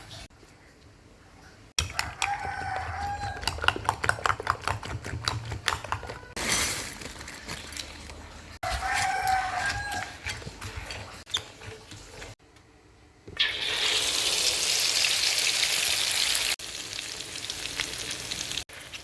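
Cooking sounds: utensils clattering and clicking, with a rooster crowing twice in the background, about two seconds in and again about nine seconds in. Later, loud sizzling of food frying in a pan lasts about three seconds.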